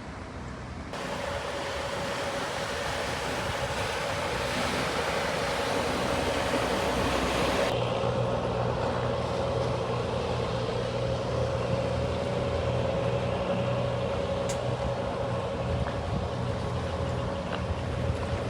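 A boat's engine runs steadily, a low drone with a constant whine above it. From about a second in until nearly eight seconds, a loud rushing hiss of water or wind lies over it.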